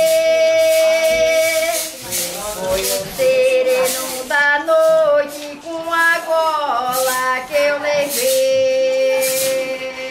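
Women's and children's voices singing a slow folk song, a lacemakers' cantiga, with long held notes.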